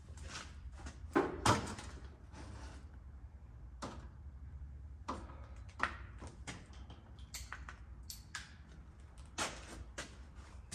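Irregular metallic clinks and knocks of hand tools being handled: sockets, extensions and a ratchet against each other and the engine, the loudest about a second and a half in. A steady low hum runs underneath.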